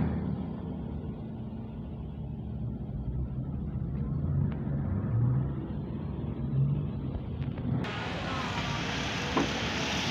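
Bus diesel engine running with a low, steady rumble. About eight seconds in, the sound switches abruptly to a brighter, noisier stretch of traffic noise.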